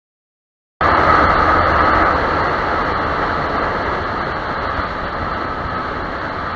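Steady rushing noise of a moving vehicle on the road, with a faint steady whine; it cuts in abruptly about a second in and fades slightly toward the end.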